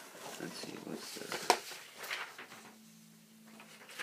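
Cardboard shipping box and its packing being handled and rustled by hand, with one sharp snap or click about a second and a half in.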